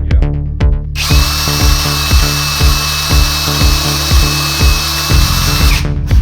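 Electric drill running at a steady speed for about five seconds, starting about a second in and stopping near the end, with a steady high whine. Electronic music with a steady beat plays under it.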